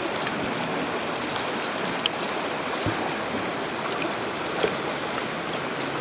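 Uncompahgre River rushing steadily, an even sound of fast-flowing mountain water with a few faint ticks.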